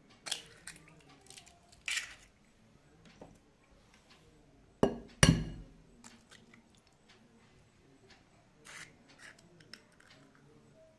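Scattered kitchen clinks and knocks of a bowl and utensils, a few short strikes with the loudest pair about five seconds in.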